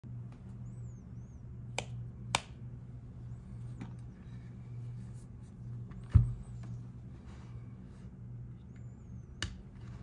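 A few sharp clicks and knocks as a Singa RAT Unikorn mechanical keyboard is handled, turned over and set down. The loudest is a thump about six seconds in, over a steady low hum.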